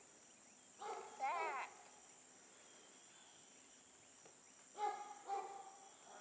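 Steady high-pitched drone of crickets or other insects, with short chicken calls over it: a pair about a second in, one of them a wavering crow-like call, and another pair near five seconds.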